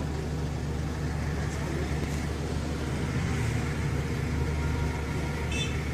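Local bus's engine running steadily with a low hum. A brief high-pitched beep sounds near the end.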